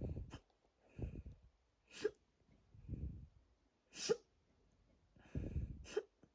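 A person hiccuping about every two seconds, three sharp hiccups with low muffled sounds in between, the hiccups set off by a stomach bloated with water.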